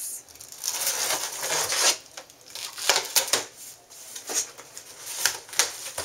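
A cardboard shipping box being opened: a rasping tear of packing tape lasting about a second and a half near the start, then scattered scrapes and knocks of the cardboard flaps being pulled open.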